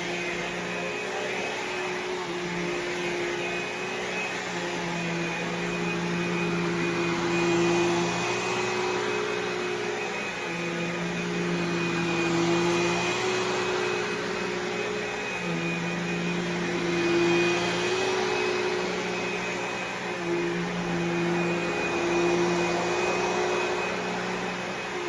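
Vacuum cleaner running continuously with a steady motor whine. A lower hum cuts in and out every second or two, and the loudness rises and falls slightly.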